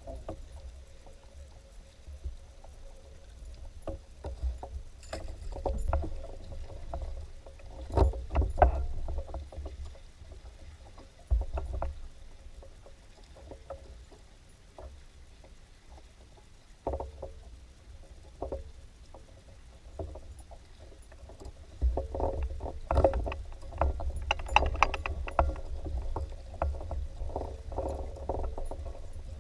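Fishing kayak on the water: irregular splashes and knocks against the hull over a low rumble, the knocks coming thicker near the end.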